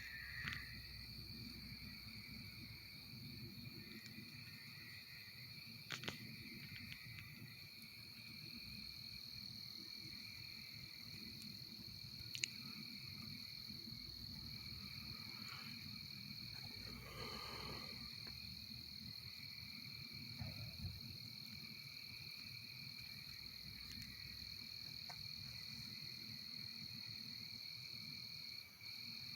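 Faint, steady evening chorus of insects and frogs in the woods: a continuous high trill with a lower, softer band beneath it, over a low rumble.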